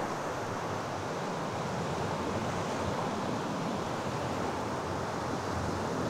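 Steady rushing of wind and sea surf, with wind buffeting the microphone.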